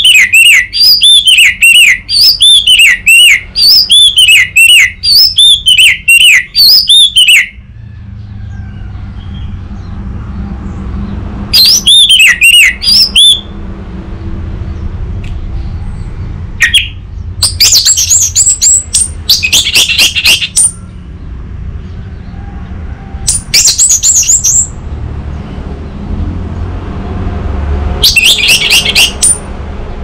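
Orange-headed thrush (anis merah) singing loud bursts of rapid, repeated whistled notes: a long run at the start, then four shorter phrases with pauses between.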